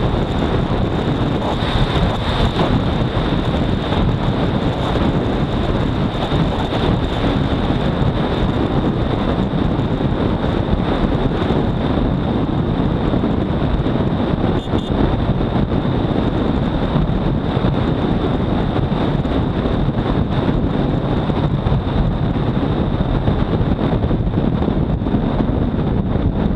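Heavy wind rushing over the microphone of a Honda CBR250R at high speed, over the steady running of its single-cylinder engine. A thin steady high whine sits above it throughout.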